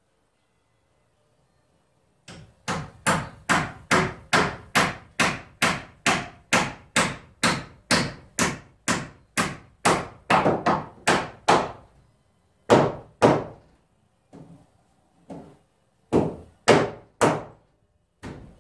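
Hammer nailing into wood framing: a steady run of sharp strikes, about three a second for some ten seconds, then after a pause two more hard strikes, a few light taps, and three final hard strikes.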